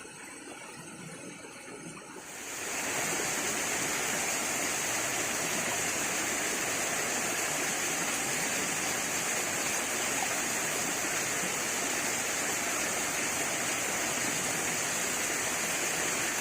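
Steady rush of flowing water with a strong high hiss, setting in about two and a half seconds in and holding even after that.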